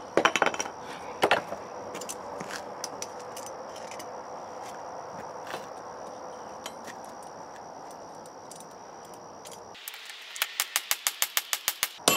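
Hand hammer striking red-hot leaf-spring steel on a small steel block anvil. A few blows come at the start and about a second in. Then there is a steady rushing noise with a few light metallic clinks, which stops abruptly near the end. A fast run of hammer blows, about five a second, follows it.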